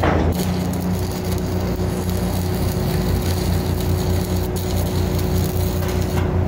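Electric arc welding on steel bar-joist bridging: the arc crackles steadily, starting with a sharp strike at the very beginning and cutting off abruptly near the end. A steady, pulsing low rumble runs underneath.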